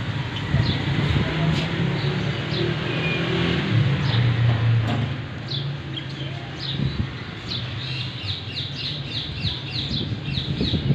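A bird chirping over low background noise. Its short, high, falling chirps start about halfway through and come quicker near the end, about three a second.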